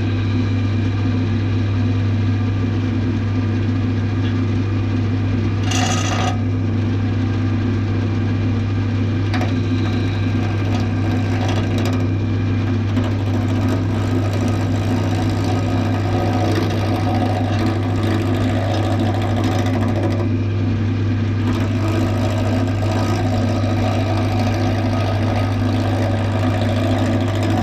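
Clarke CWL1000CF wood lathe running with a steady hum, and a small roughing gouge cutting a rough, damp wood blank in two longer stretches in the second half. A brief sharp scrape comes about six seconds in.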